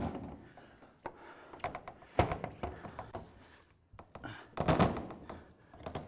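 Wooden sauna wall panel knocking and bumping against the wooden frame as it is worked into its joints: a series of irregular wooden knocks and thunks, the loudest about two seconds in and again just before five seconds, with lighter clicks and scuffs between.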